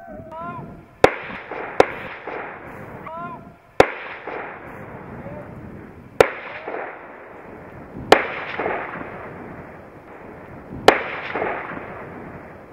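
Six hunting gunshots at irregular intervals, each a sharp crack that rings out and echoes away across open ground and forest.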